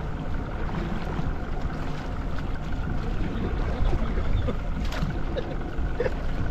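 Steady low rumble of a fishing boat at sea, with wind on the microphone.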